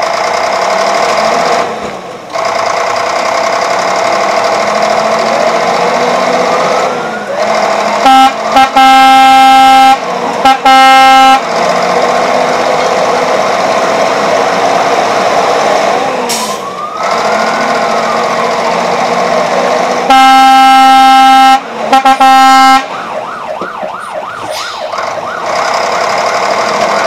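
Emergency vehicle siren sounding over a steady drone: slow wailing sweeps up and down, and twice a long, very loud air-horn blast broken into a few parts, the second followed by a fast yelping warble.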